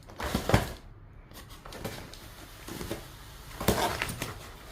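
A cat playing with and tearing at a cardboard box: a few sharp knocks and scratchy rustles, the loudest just after the start and another near the end.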